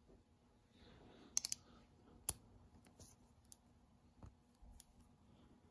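Faint, scattered clicks of metal quarter-inch drive hand tools being handled and fitted together: a KOKEN universal socket and extension. A quick run of three clicks comes about a second and a half in, with the strongest single click just after.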